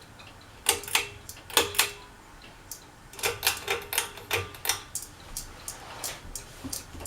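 Sharp metallic clicks and taps on a ceiling fan, a few ringing briefly, then a lighter, regular ticking about four times a second.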